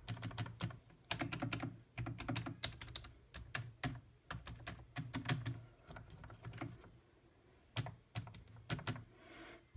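Typing on a Trust Thosa wireless membrane keyboard: quick, irregular key clicks from both hands, with a short pause about six seconds in before the typing resumes.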